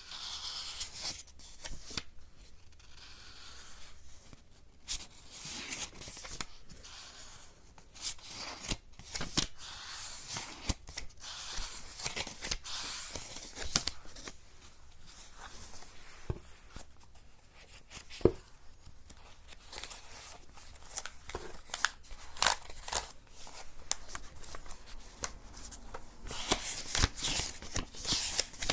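Close-miked ASMR trigger sounds: scratchy, tearing-like noise in short bursts, broken by many sharp clicks.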